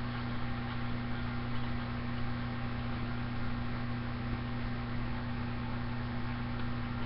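Steady low electrical hum with a constant hiss underneath.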